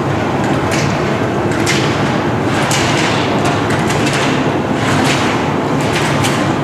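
A slalom skier's run through the gates: roughly once a second a short scrape or knock, the ski edges setting into hard snow and plastic slalom poles being struck aside, over a steady loud background noise.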